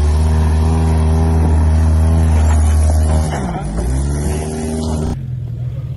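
Honda Element's 2.4-litre four-cylinder engine revved hard and held high while the car climbs a rock ledge, the revs dipping and picking up again a little past halfway. Near the end it changes abruptly to a lower, quieter running note.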